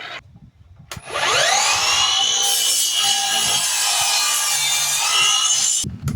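Electric power saw cutting wooden trim. Its motor spins up about a second in with a rising whine that then holds steady. It stops near the end and starts again, the pitch dipping and rising as the blade cuts.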